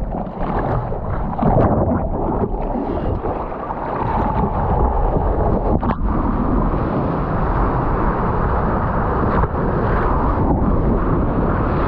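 Whitewater of a breaking wave rushing and splashing over a surfboard as it is ridden, with wind buffeting the board-mounted microphone.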